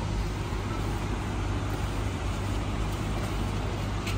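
Steady drone of a road vehicle running, with engine hum and road noise.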